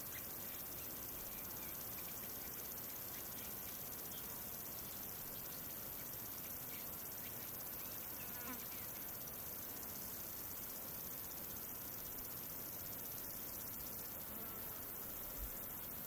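Steady, high-pitched chorus of insects, with a soft low thump near the end.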